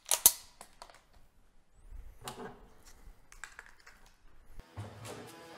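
A few sharp metallic clicks and clacks of pistols being handled and set down on a table, the loudest just after the start. Background music comes in near the end.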